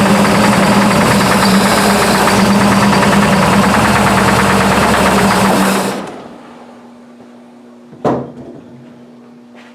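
1955 Buick 322 Nailhead V8 running loudly with a knock that has just developed, which the owner can't place as lifter knock or rod knock despite 42 pounds of oil pressure. The engine stops about six seconds in, and a single sharp knock follows about two seconds later.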